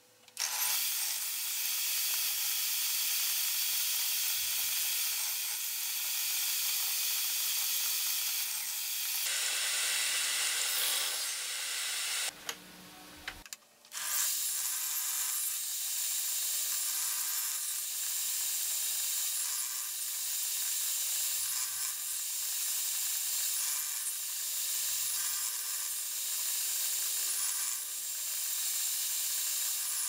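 A woodworking tool working pallet wood, making a steady hissing noise. It stops briefly a little under halfway through, then starts again.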